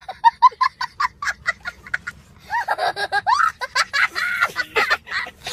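High-pitched laughter: a quick run of short giggles for about two seconds, then longer squealing laughs that rise and fall.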